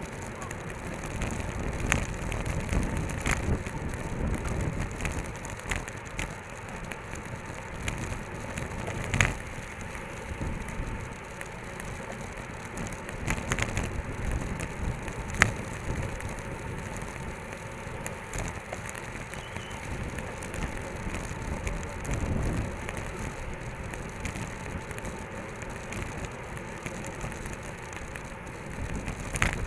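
Road bicycles riding in a race bunch, heard from a handlebar-mounted camera: a steady rush of wind buffeting on the microphone and tyres on asphalt, with a few sharp clicks and rattles.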